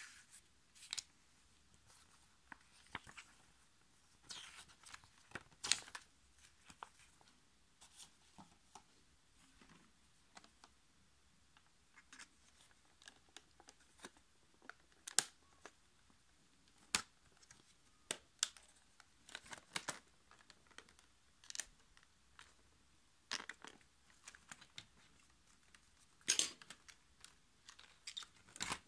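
Handling noise from unpacking a hair clipper: paper booklet pages rustling, and plastic packaging crinkling and clicking, in scattered short rustles and taps. The clipper's motor is not running.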